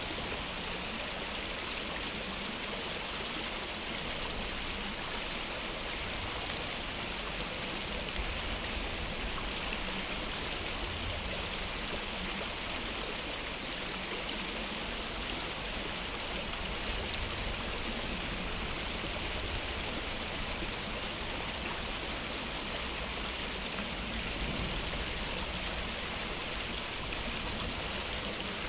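A stream of water running steadily: an even, unchanging rush of flowing water.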